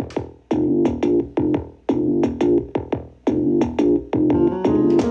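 Electronic music: a synthesizer or keyboard playing over a drum-machine beat, with sharp repeated notes.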